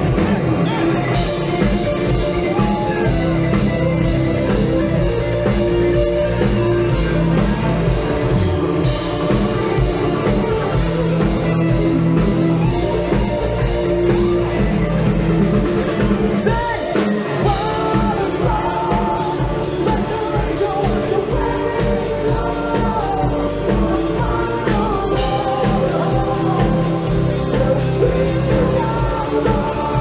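A heavy metal band playing live and loud: distorted electric guitar, bass and a drum kit, with a male lead vocal singing over them.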